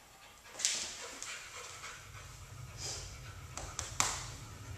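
A dog breathing hard in short, irregular huffs and pants, with a sharp click about four seconds in.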